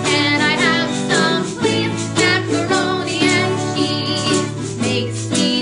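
A woman singing a children's song to a strummed acoustic guitar, with a second small plucked string instrument playing along.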